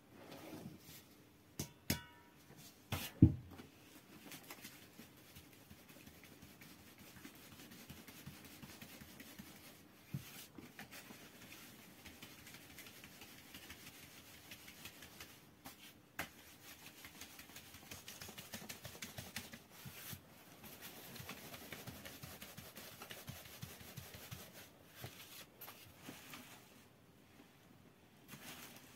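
Flour being sifted through a round hand sieve shaken back and forth: a soft, continuous swishing and rustling. A few sharp knocks come in the first few seconds, the loudest about three seconds in, with another around ten seconds in.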